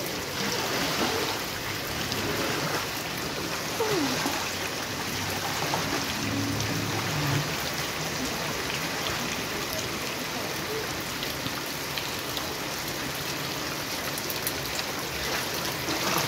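Heavy rain falling steadily on a paved sidewalk and street, with rainwater splashing and washing along as a floor squeegee pushes it across the flooded sidewalk.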